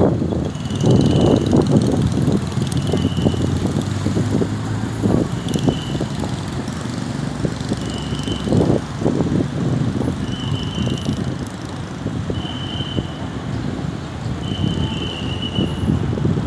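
Road traffic and wind rumbling on the microphone, swelling and easing. A short, flat, high tone sounds about every two seconds over it.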